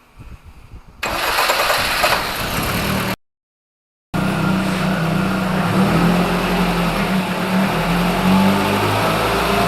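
A VAZ car's petrol engine being started, a loud burst of engine noise about a second in. After a short gap in the sound it runs steadily. It starts without the knock it had on starting, after the flywheel ring gear was turned over and a new starter fitted.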